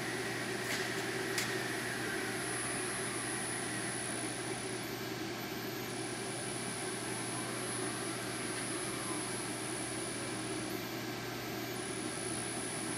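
Manford 200VS milling machine running on its Delta inverter variable-speed drive: a steady hum with a high inverter whine that drops out twice for about a second, around 5 and 11 seconds in, as the spindle is switched between forward and reverse for tapping. Two light clicks about a second in.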